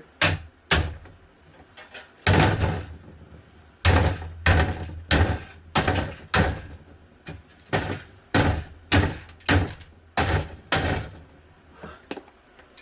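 Box fan being smashed apart, its motor and housing taking about fifteen hard blows in irregular runs of one or two a second, each a heavy thud with a sharp crack.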